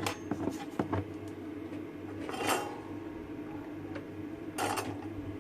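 Light clicks and clinks of small tools and parts being handled, several quick ones in the first second and two brief scraping rustles later, over a steady low electrical hum.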